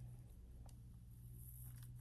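Near silence: a steady low room hum with a couple of faint light clicks.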